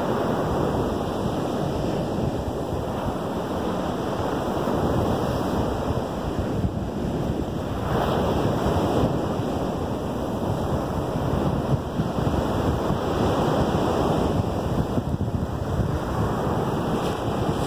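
Lake Michigan surf breaking on a sandy beach: a steady wash that swells and eases as each wave comes in.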